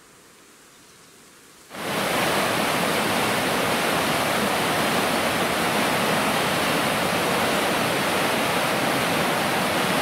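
Steady, even rushing of water, starting suddenly about two seconds in.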